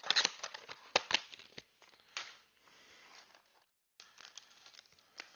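Foil trading-card pack being handled and torn open by hand: a string of sharp crinkling crackles and rustles, with a short silent break just after the middle.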